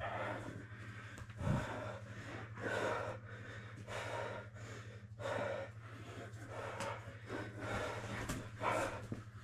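Heavy breathing of grapplers rolling on a mat, with hard breaths and gasps about once a second and a thump about a second and a half in. A steady low hum lies underneath.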